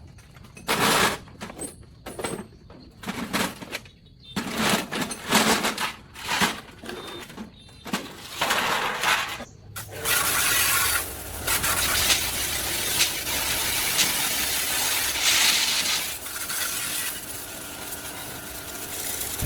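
Workshop work on metal parts: a run of separate knocks and scrapes for about the first half, then a steady rough hissing or rasping noise that continues to the end.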